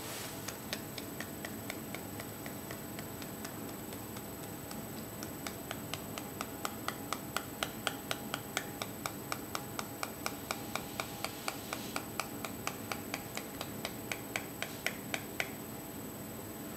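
Thin plastic candy-kit tray clicking in a quick, even series of light taps, about three a second, as thick curry sauce is tapped out of it into another plastic tray. The taps grow louder about midway and stop about a second before the end.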